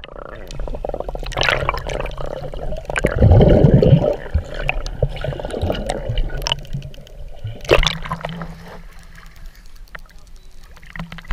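Water sloshing and bubbling around a GoPro held underwater, muffled through its waterproof housing. A louder gurgling rush comes about three seconds in, with brief sharp splashes near one and a half seconds and near eight seconds.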